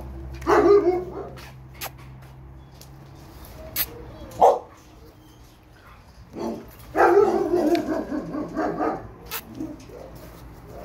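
Dogs barking in shelter kennels: single barks about half a second in and again near the middle, then a quick run of barks a few seconds later.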